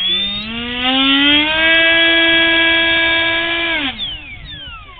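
RC model jet's electric ducted fan spooling up with a rising whine, held at a steady high whine for about two seconds, then throttled back just before four seconds in and winding down with a falling whine.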